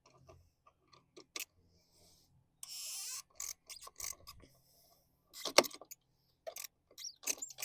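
Irregular metallic clicks and clinks of hand tools working on an outboard carburettor's mounting bolts, with a short scrape about three seconds in. The clicks get louder and come faster in the second half.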